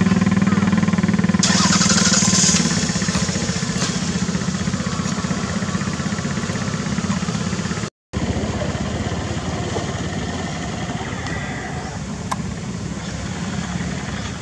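A small engine running steadily, louder for the first two seconds or so and then a little quieter, with a brief hiss about two seconds in. The sound cuts out for a moment near the middle.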